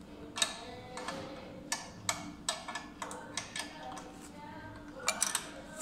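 Sharp metallic clicks and clinks, over a dozen at irregular intervals with a quick cluster near the end, as a wrench works the clamping bolts on the steel cutting-chamber housing of a Wanner slow-speed plastic grinder, opening it up.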